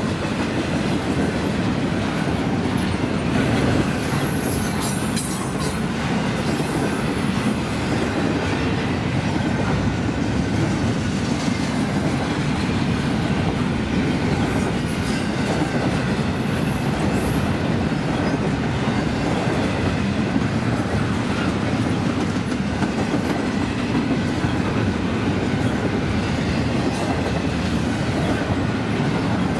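Double-stack intermodal freight train rolling past: a steady rumble and clatter of steel wheels on rail, with a brief high wheel squeal about four to six seconds in.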